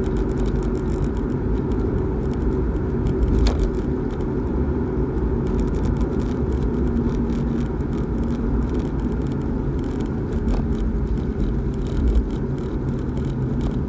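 Interior driving noise of a Nissan Altima: a steady rumble of engine and road noise with a faint hum. There is a short knock about three and a half seconds in and a small thump near the end.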